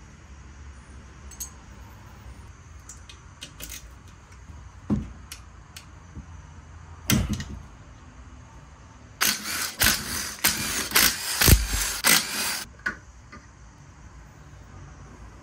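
Metal tools and engine parts clinking and knocking as a small single-cylinder engine is taken apart on a workbench. About nine seconds in comes a run of loud, rapid metallic clattering that lasts a few seconds.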